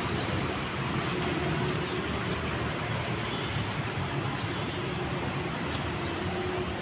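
Steady rushing outdoor background noise with a low, uneven rumble and no distinct events.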